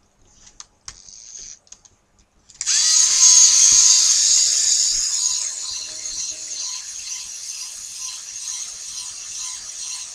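Lego Mindstorms NXT servo motor driving the gun's gear train, a whirring with ratcheting clicks. It starts suddenly about two and a half seconds in and slowly gets quieter. Before it come light clicks of plastic Lego parts being handled.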